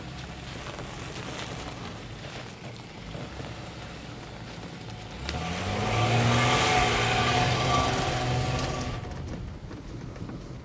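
Audi A6 estate climbing a snowy track: a low engine note at first, then about five seconds in the engine rises in pitch as the car accelerates past close by, loudest for a few seconds before fading as it pulls away.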